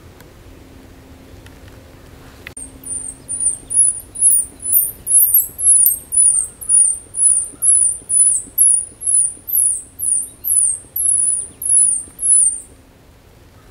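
A hunter's squirrel distress call: a run of about twenty shrill, high squeaks, about two a second, imitating a squirrel in distress to lure squirrels in. It starts about two and a half seconds in and stops shortly before the end.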